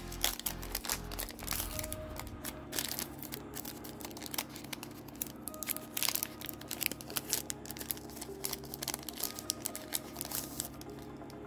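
Foil trading-card booster pack crinkling and tearing as it is opened by hand, a dense run of irregular crackles.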